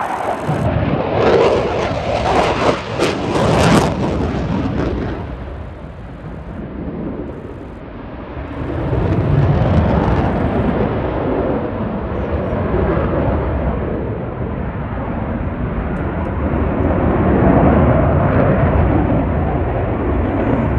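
Eurofighter Typhoon's twin EJ200 turbofan engines in a flying display: loud jet noise that eases off about six seconds in and swells again from about nine seconds as the jet comes round.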